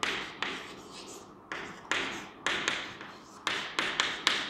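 Chalk on a chalkboard while words are written: about a dozen sharp taps and short scrapes in an uneven rhythm, each fading quickly.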